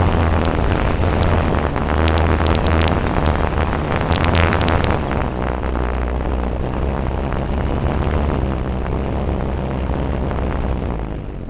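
Onboard sound of a radio-controlled model Beaver plane: its motor and propeller running with a steady low hum and wind rumble on the microphone. A run of sharp clicks and knocks comes in the first few seconds, and the sound starts to fade near the end.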